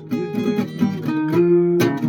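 Acoustic guitar being played: picked notes and chords, with a sharp strum near the end.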